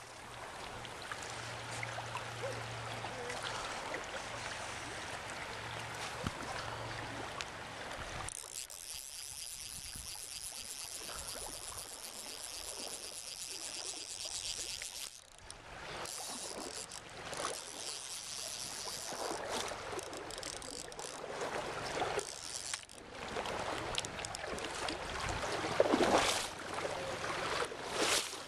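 Running river water with splashing at the surface as a hooked rainbow trout is played on a fly rod. A few louder splashes and knocks come near the end.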